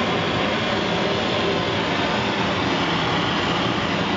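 Straight propane torch burning steadily at full flow, a continuous loud roaring hiss with no let-up, as it heats a copper boiler for silver soldering.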